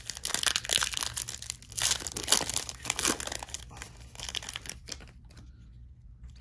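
A foil trading-card pack being torn open and crinkled in the hands. The crinkling is loud and dense for the first few seconds, then gives way to softer rustles as the cards are slid apart and thumbed through.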